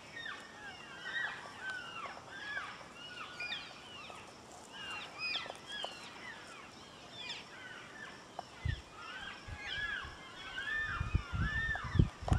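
Elk cows and calves calling to each other: many short, high, overlapping mews and chirps that rise and fall in pitch. A few low thumps come in over the last few seconds.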